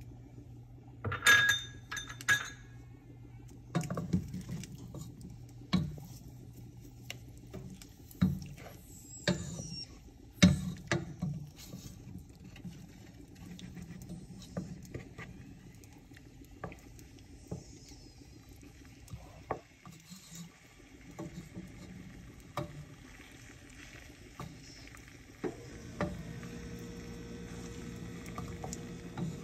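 A glass bowl clinks against a nonstick frying pan as liquid is poured over tofu cubes. Then a spatula knocks and scrapes as it stirs the tofu around the pan, and a steady low sizzle sets in near the end.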